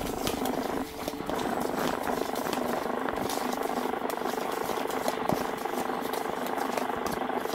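Cake batter being stirred by hand in a plastic bowl with a metal utensil: repeated light scrapes and taps against the bowl, over a steady background hum.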